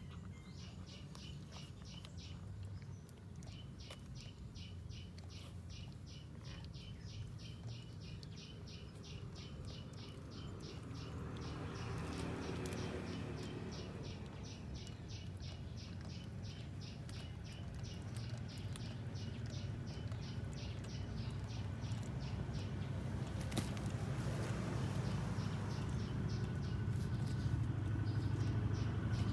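Regular high chirping, about two to three chirps a second, over a low steady rumble that grows louder toward the end.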